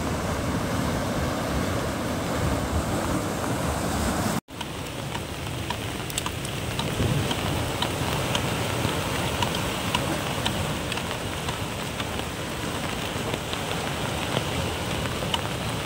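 Steady hiss of water outdoors, with faint scattered ticks through it. It breaks off abruptly about four and a half seconds in, then carries on.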